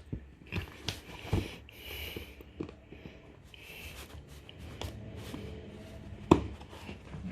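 Hands opening a smartphone's retail box: scattered light taps and clicks of cardboard and packaging, with a few brief rubbing, sliding sounds, and one sharper knock about six seconds in.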